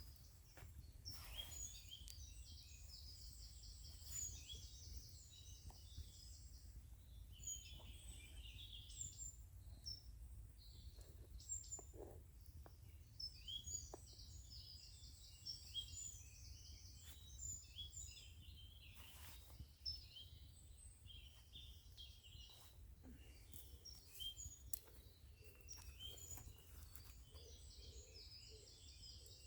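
Faint woodland birdsong: many short high chirps and calls from small birds, over a low steady rumble, with a few faint clicks now and then.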